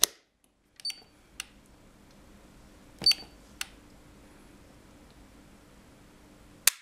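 Hager ADS966D RCBO snapped on by hand, then clicks and short high beeps from the Sonel MRP-200 tester's buttons. Near the end comes a sharp snap as the RCBO trips on the tester's rising AC residual-current test, at about 23.9 mA.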